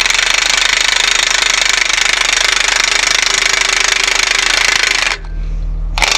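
Impact wrench hammering on a bolt in a long, loud burst that stops about five seconds in, followed by a short final burst near the end.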